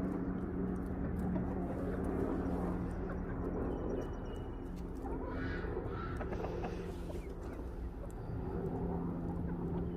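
Yard ambience: a steady low hum with faint bird calls, the clearest about five and a half seconds in.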